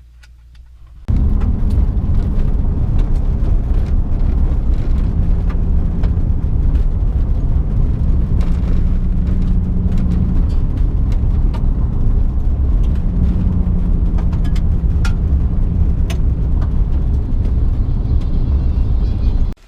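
A motor vehicle travelling at speed: a loud, steady low rumble of engine and travel noise, with a faint hum that shifts pitch a few times. It starts suddenly about a second in and cuts off abruptly near the end.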